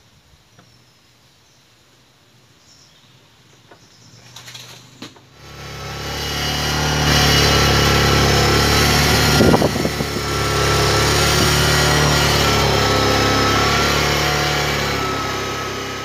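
Bajaj Pulsar 150's single-cylinder four-stroke engine, in gear with the rear wheel spinning on the stand. It rises from near quiet to a steady high rev about five seconds in, with a short dip about halfway.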